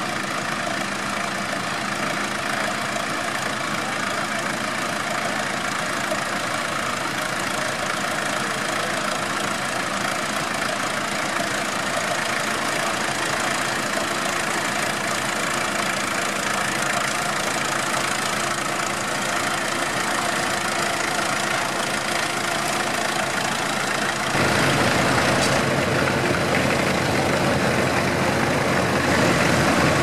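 Vintage tractor engine running steadily while pulling a plough through stubble. About 24 seconds in, the sound cuts abruptly to a second, louder tractor engine.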